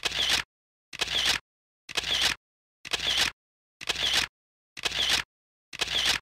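A short, identical sound effect repeated evenly about once a second, each hit about half a second long with dead silence between.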